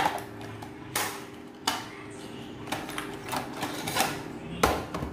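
A telescopic fishing rod's packaging box being opened and handled: a string of irregular sharp clicks and knocks, about eight of them, as the box and rod are handled.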